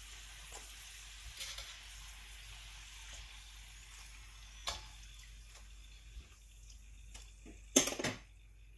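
Kitchen utensils clinking against dishes or a pan over a faint steady hiss. There are a few single clicks midway, and a louder clatter near the end.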